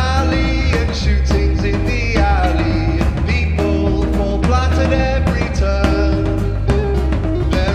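Live rock and pop band playing, with a man singing lead over a drum kit keeping a steady beat and bass notes underneath.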